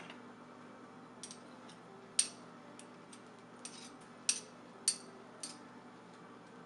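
Metal spoons clinking against each other and against a frying pan while scraping coconut oil off into the pan: a string of short, sharp clinks every half second or so, the loudest a little after two seconds in.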